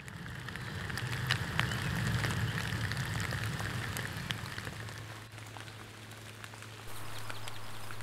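Water drops falling into a shallow woodland pool: scattered light ticks on the water's surface over a low rumble, which settles into a steady low hum after about five seconds.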